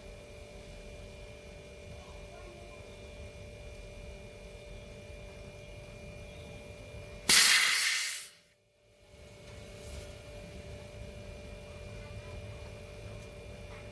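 Steady low hum with a few constant tones. About seven seconds in, a sudden loud hiss breaks in and fades away over about a second.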